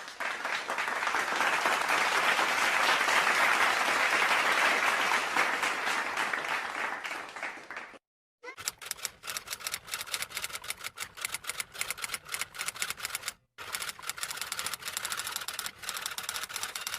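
About eight seconds of applause that swells and then fades out, followed after a short break by rapid typewriter keystrokes clattering in two runs separated by a brief pause.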